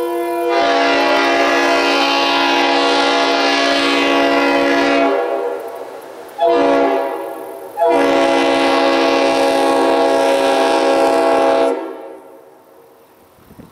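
Leslie SuperTyfon RS5TRF five-chime locomotive air horn sounding a loud chord: a long blast, a short blast, then another long blast that cuts off about 12 seconds in.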